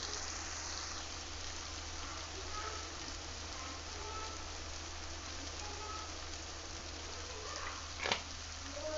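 Chopped onions and tomatoes sizzling steadily as they fry in oil in a nonstick kadai, with one sharp click about eight seconds in.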